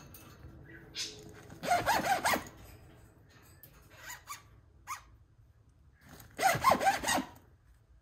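Budgerigar giving its zipper mimicry: two warbling bursts laced with quick zipper-like rasps, one about two seconds in and one near the end, with a few short chirps between.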